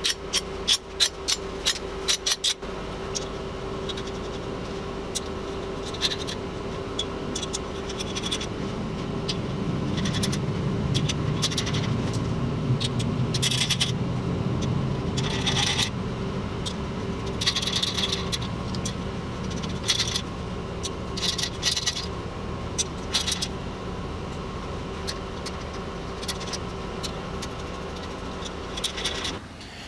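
Steel bushings and nuts clinking as they are fitted onto the studs of a torque plate on an engine block: a quick run of sharp metal clicks, then short bursts of scraping and rapid clicking, over a steady shop hum with a low tone.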